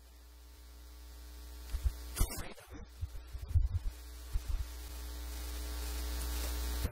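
Electrical mains hum with a ladder of buzzing overtones, growing steadily louder, with a few low thumps and a brief click about two seconds in.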